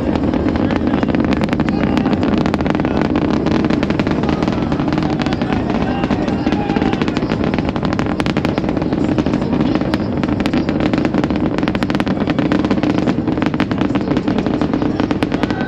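Distant SpaceX Starship Super Heavy booster's Raptor engines: a continuous loud rumble thick with sharp crackling and popping.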